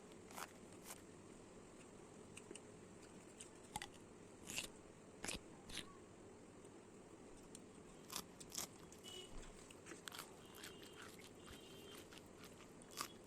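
Faint eating sounds from a biryani meal: scattered soft crunches and clicks of chewing and of food being picked from the plate, with a low steady hiss between them.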